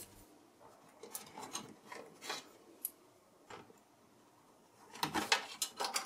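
Small plastic clicks and rustles of SATA data and power cable connectors being pulled off a desktop PC motherboard and the cables being moved aside, scattered through the first half and bunched more densely near the end.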